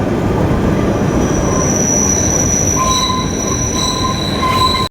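Kalka–Shimla narrow-gauge toy train running, a steady rumble of wheels on the rails with a high metallic wheel squeal setting in about a second in. Lower squealing tones join near the three-second mark and the squeal continues until the sound cuts off at the end.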